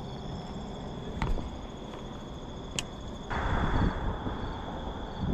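Crickets chirping steadily in a high continuous trill. A sharp click comes a little under three seconds in, followed by a brief noisy rush.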